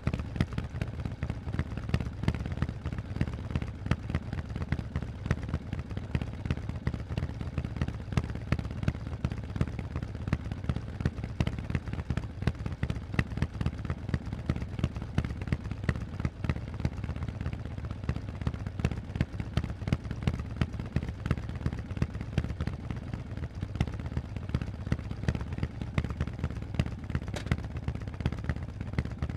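Harley-Davidson Forty-Eight's air-cooled 1200 V-twin running steadily through Vance & Hines aftermarket exhausts: a deep, even stream of sharp exhaust pulses with no revving.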